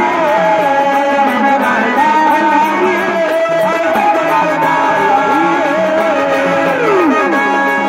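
Marathi jagran gondhal folk music: a gliding, ornamented melody line over steady instrumental accompaniment and percussion.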